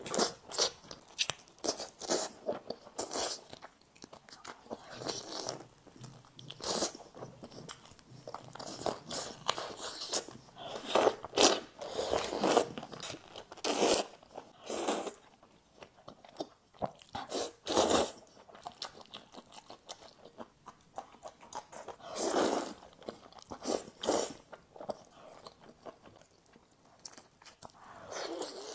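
Close-miked eating sounds: a person biting and chewing roast chicken and a round fruit, irregular bites and chewing with louder bites now and then.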